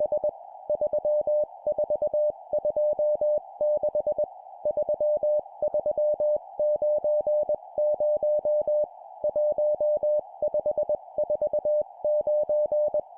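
Morse code (CW) practice tone at 20 words per minute, sending groups of four numerals: a single steady mid-pitched beep keyed in quick dots and dashes, with short pauses between groups. A steady band of hiss runs underneath.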